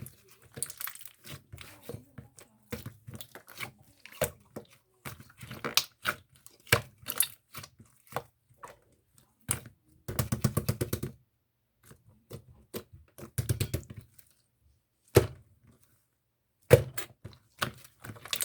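Jelly-textured slime being squished and poked by hand, making irregular sticky clicks and small pops. A dense run of crackling pops comes about ten seconds in, and single sharp clicks come near the end.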